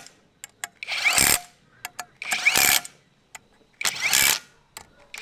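CAT cordless impact wrench (rattle gun) with a 10 mm socket on an extension, driving the bolts of a steel compressor mount in short bursts of about half a second, roughly one every second and a half, each with a rising whine, and small clicks between the bursts.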